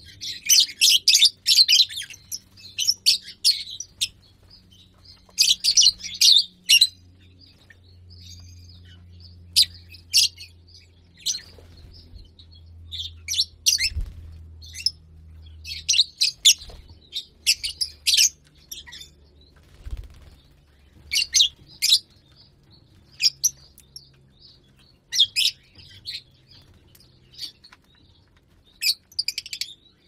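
A flock of lovebirds chirping: clusters of short, sharp, high-pitched chirps every second or two, some overlapping as several birds call at once.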